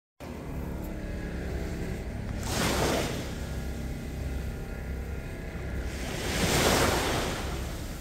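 Small sea waves washing against a concrete jetty, swelling twice, about two and a half seconds in and again about six seconds in, over a steady low rumble.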